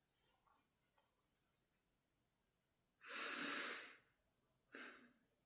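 A man breathing, mostly very quiet, with one loud breath about three seconds in and a short, fainter one near the end.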